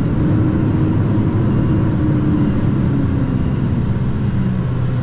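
Heavy goods vehicle's diesel engine pulling the lorry in reverse, heard from the cab: the revs sit higher early on, then ease down gradually.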